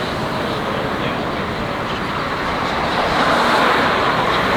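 City street traffic noise, growing louder about three seconds in.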